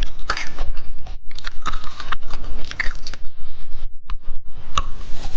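Close-miked chewing of hard candy: irregular crisp crunches as the candy is bitten and broken between the teeth, with short pauses between bites.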